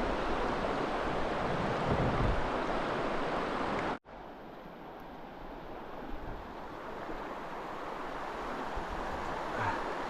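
Steady rush of river water over shoals, with wind buffeting the microphone. About four seconds in it cuts out abruptly and comes back quieter and duller.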